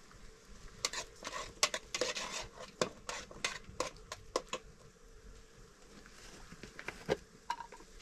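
Metal cooking pots, bowls and utensils clinking and knocking together as they are handled over a wood fire. The clatter comes as a quick run of sharp knocks for a few seconds, followed after a pause by a few more.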